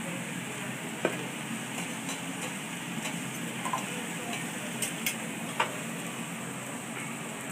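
Food sizzling on a hot teppanyaki griddle as a metal spatula and fork work it, with a few sharp clicks of metal on the steel plate, the loudest about five and a half seconds in.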